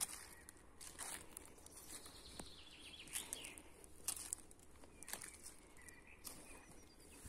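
Footsteps crunching on a path of dry fallen leaves at a walking pace, about one step a second, with faint bird song behind them.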